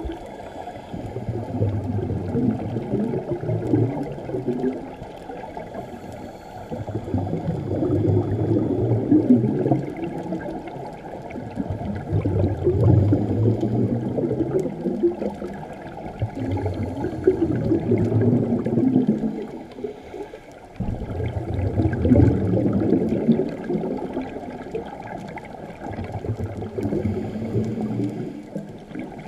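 Scuba regulator breathing heard underwater: muffled bubbling exhalations that swell and fade about every four to five seconds.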